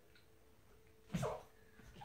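A small dog gives one short yelp, falling in pitch, about a second in.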